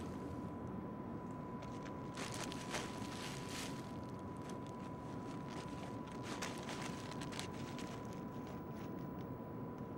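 Steady outdoor background rumble and hiss with a thin, steady high whine, and scattered soft crunches and clicks.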